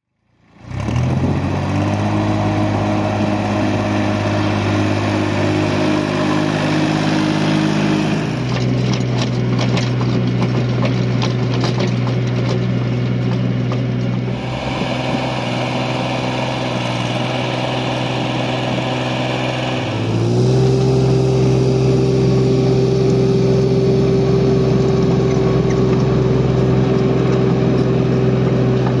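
Pronar 320A tractor's diesel engine running steadily under load while driving a rotary tiller through the soil. The engine note shifts at a couple of points and steps up to a slightly higher pitch about twenty seconds in.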